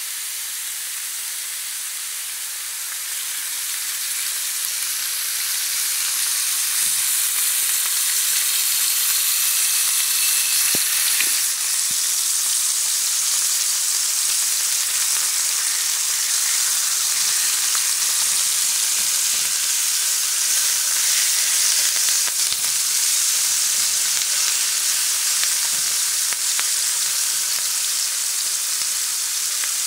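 Marinated chicken pieces sizzling in olive oil in a nonstick frying pan, a steady hiss that grows louder over the first several seconds and then holds even.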